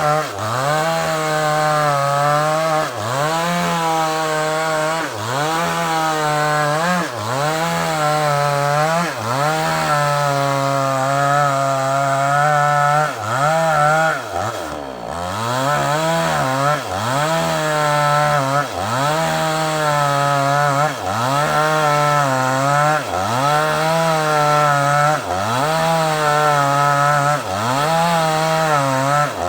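Two-stroke chainsaw cutting through a large sengon log, the engine at high revs and dipping in pitch about every two seconds as the chain bites into the wood, then recovering. About halfway through the revs drop further before climbing back up.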